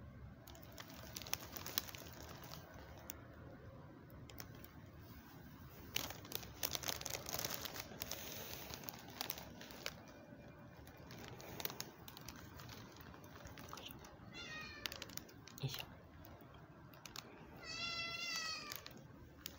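Black-and-white street cat meowing twice: a short meow about three-quarters of the way through, then a longer meow that wavers in pitch near the end. Scattered rustling and clicking noises come earlier.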